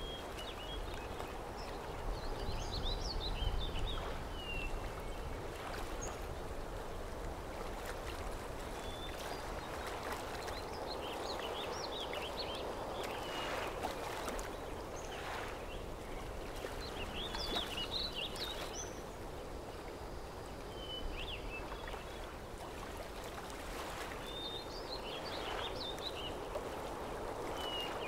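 Outdoor ambience: a steady soft rushing hiss, with short bird chirps and song phrases coming every few seconds.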